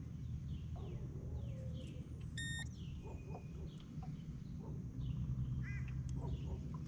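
A single short electronic beep about two and a half seconds in, from the digital fish-weighing scale, over repeated falling bird chirps and a steady low rumble.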